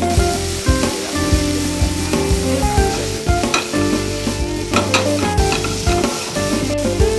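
Cod, mushrooms and green pepper sizzling in a frying pan over a gas flame. The pan is shaken and tossed, with scattered clicks of food and pan.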